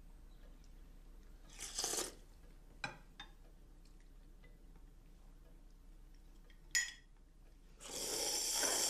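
Spoons clinking against soup bowls at a quiet dinner table: a few faint separate clinks, with short soft rushes of noise about two seconds in and again near the end.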